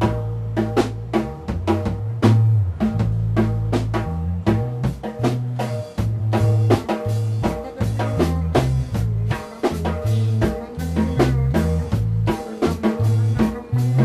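Instrumental funk-rock jam: an electric bass walks through a line of changing low notes over a busy, steady drum-kit groove of snare, kick and rimshot hits.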